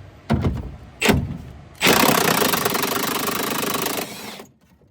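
Impact driver hammering through sheet metal to cut a hole for a wiring harness: two short bursts, then a steady run of about two seconds with a rapid pulsing rattle that stops as the cutter breaks through.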